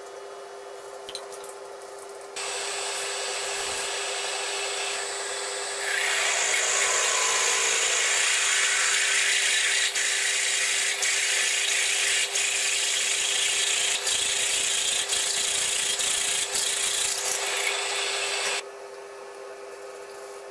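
Twist drill cutting a hole into a metal blank on a mill-drill, over a steady motor hum. A harsh hissing cutting noise starts about two seconds in, gets louder about six seconds in, dips briefly about once a second, and cuts off suddenly near the end.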